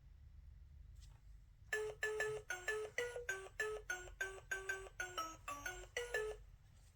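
Little beeping electronic tune from a children's sound book's built-in speaker: a run of short bright notes, about three a second, stepping up and down in pitch, starting about two seconds in and stopping shortly before the end.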